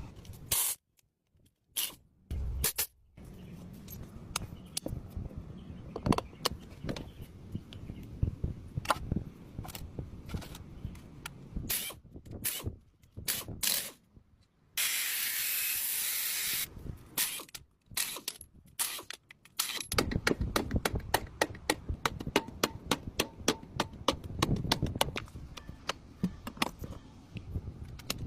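A run of short workshop clips joined by abrupt cuts: clicks, taps and scraping from hand tools on metal parts, with a steady spray hiss lasting about two seconds near the middle.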